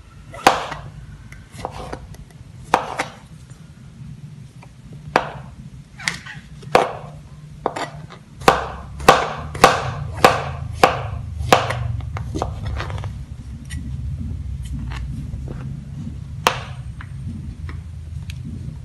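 Kitchen knife slicing button mushrooms on a plastic cutting board: sharp taps of the blade hitting the board at irregular intervals, with a quicker run of about two cuts a second in the middle.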